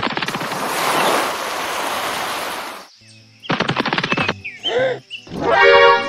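Edited cartoon sound effects: a harsh, rapidly pulsing rattle lasting nearly three seconds, then after a short gap a quick run of clicks, a brief warbling squeak and a short buzzing tone.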